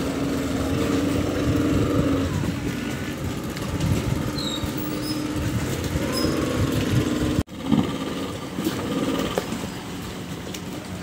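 Speedboat's multiple outboard motors running, a steady engine drone with a held humming tone. It cuts out abruptly for a moment about seven seconds in, then carries on a little quieter.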